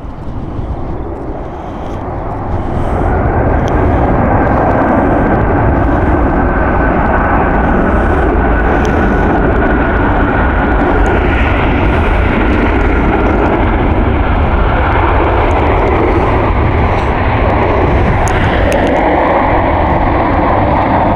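Boeing 747-400 freighter's four jet engines on approach, the noise building over the first few seconds into a loud, steady roar with a faint high whine running through it.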